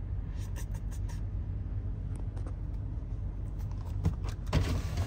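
Car idling, heard from inside the cabin as a steady low hum, with a few faint clicks and taps.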